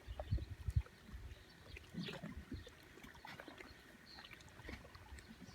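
Small waves lapping and splashing at the water's edge, with a few low thumps of wind or handling on the microphone in the first second.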